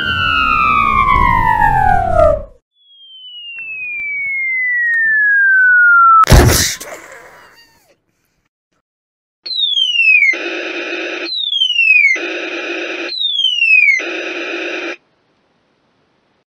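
Falling whistle sound effects. One descending whistle fades out about two seconds in. A second, longer one falls in pitch while getting louder and ends in a loud bang about six seconds in. Then three quick falling whistles each cut into a short burst of noise.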